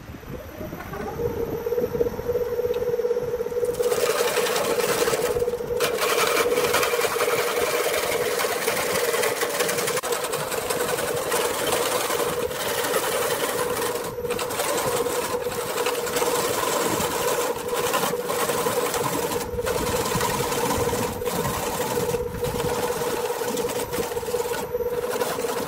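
Electric wood lathe starting up: its motor hum rises in pitch and settles to a steady tone about a second in. From about four seconds a turning tool cuts the spinning wooden bowl blank with a steady scraping hiss, broken several times by brief pauses as the tool comes off the wood.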